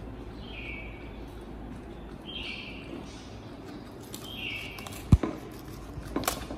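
Baby macaque giving three short, high squeaky chirps, each falling slightly in pitch, about two seconds apart. A sharp click about five seconds in, and another near the end, are the loudest sounds.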